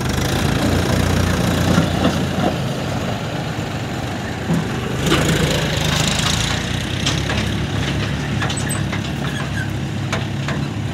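Tractor diesel engine running steadily, with a few short knocks and clanks scattered through it.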